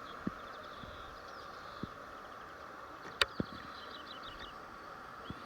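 Outdoor ambience: small birds chirping in quick short series over a steady hiss, with a few soft knocks and one sharp click about three seconds in.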